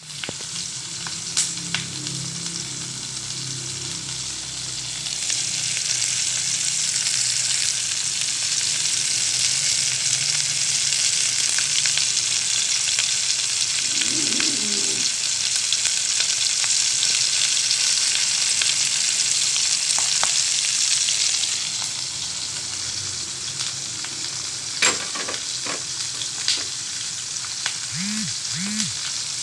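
Pork chops frying in hot oil in a pan, a steady sizzle that grows louder about five seconds in and drops back after about twenty seconds. A few sharp clicks come near the end.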